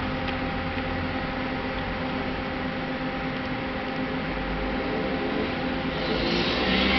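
Steady hiss with a faint hum, the kind of noise a fan or the recording itself makes; near the end, music begins to come in.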